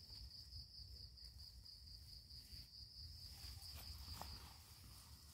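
Faint, steady, high-pitched shrilling of insects in the undergrowth, with a couple of faint clicks about four seconds in.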